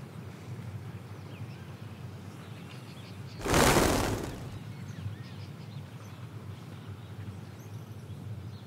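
A sudden whoosh of noise about three and a half seconds in, fading away over about a second. It sits over a steady, faint ambient background with a low hum and a few faint chirps.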